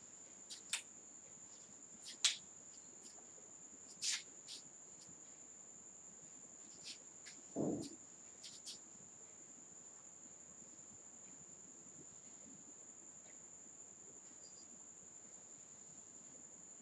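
Faint room tone with a steady high-pitched whine throughout. A few sharp clicks come in the first half, and a short low thump sounds just under eight seconds in.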